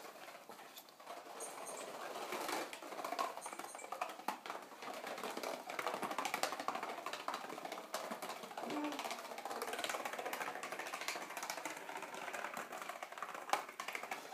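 A domino chain of empty cardboard cigarette boxes toppling one after another, giving a quick, continuous run of light clicks.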